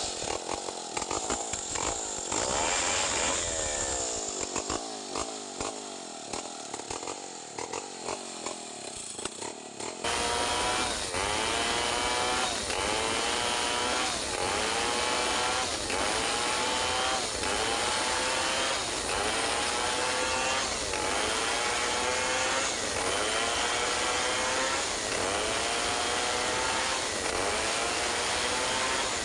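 Stihl 070 two-stroke chainsaw ripping lengthwise through a log under load. About ten seconds in it turns suddenly louder, and from then on the engine pitch repeatedly sags and jumps back up about every second and a half as the saw is worked through the cut.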